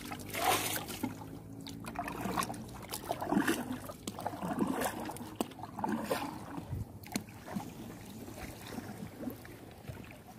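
Water splashing and sloshing in irregular strokes, as of someone moving through water along a line of lobster traps.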